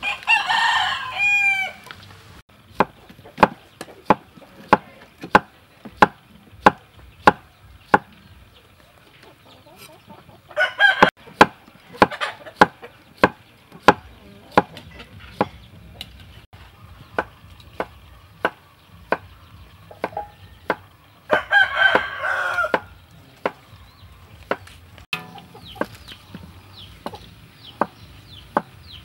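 A rooster crowing three times, about ten seconds apart, the first crow the loudest sound. Under it, from about two seconds in, a cleaver chops steadily on a wooden board, about one and a half knocks a second, slicing cucumber.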